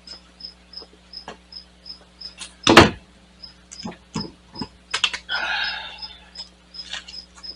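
Front wheel of a 2005 Ford Escape being worked off its hub by hand: one heavy thump about three seconds in, a few clicks, then a short scraping rasp as the wheel slides off the studs. Crickets chirp steadily about three times a second behind it.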